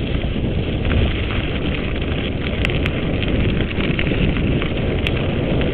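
Mountain bike ridden over a dirt track: steady wind rush on the bike-mounted camera's microphone with tyre rumble, and a few sharp clicks and rattles from the bike.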